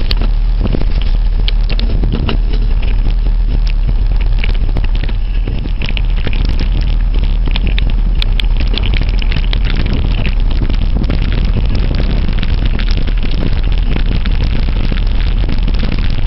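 Wind buffeting the camera microphone as a mountain bike rides the trail, with a steady low rumble and frequent small clicks and rattles from the bike over rough ground.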